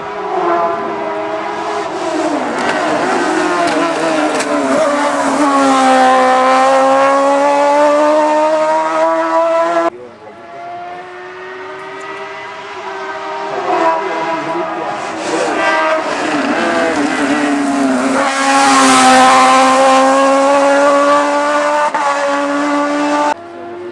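Two hillclimb rally cars in turn, each engine running loud at high revs, its pitch falling and then holding steady. A hard cut about ten seconds in switches from the first car to the second.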